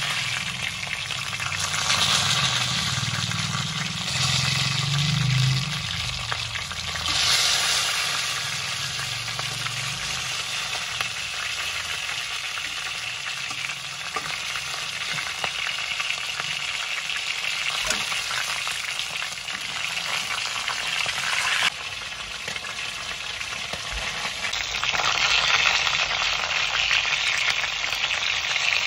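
Chicken drumsticks sizzling as they fry in hot oil in a stainless steel pot, with a few clicks of metal tongs turning the pieces. The sizzle grows louder for the last few seconds.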